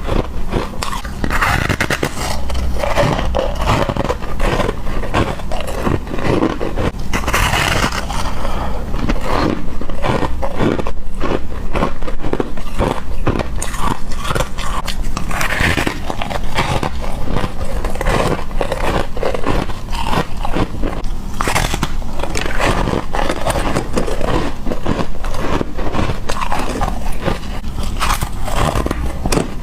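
A person biting and chewing ice close to the microphone: a continuous run of sharp crunches and cracks.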